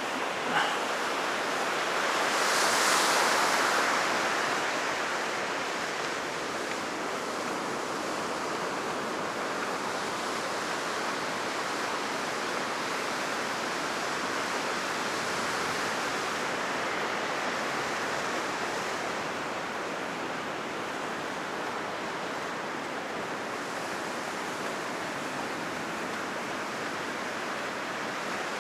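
Heavy surf after a typhoon, waves breaking and washing on a sandy beach: a steady roar of surf, with one wave swelling loudest about three seconds in.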